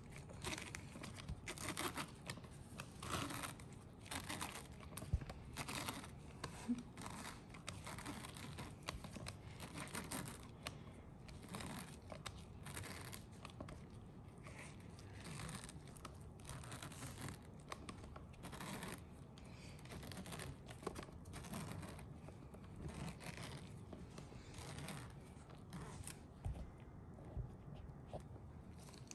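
VacuVin pineapple slicer being twisted down through a pineapple, its blade cutting the fibrous flesh in a run of short, irregular scraping and tearing strokes.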